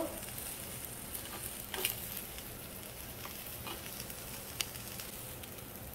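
Omelette faintly sizzling in a nonstick frying pan while a spatula cuts through it. There are a few light taps and scrapes of the spatula on the pan, the sharpest click about four and a half seconds in.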